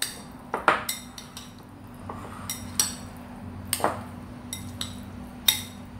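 Chopsticks tapping and clicking against a bowl while raw cubed pork is stirred in its salt-and-pepper marinade: a handful of irregular sharp clicks.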